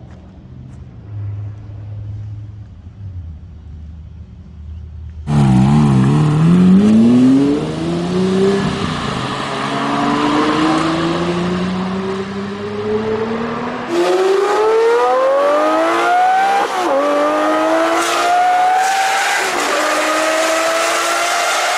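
Lamborghini Murciélago V12 running at a low idle, then, after a sudden cut about five seconds in, revving hard under acceleration with its pitch climbing and dropping at each gear change. From about two-thirds of the way in it is heard from inside the cabin in a tunnel, pulling hard through two more upshifts.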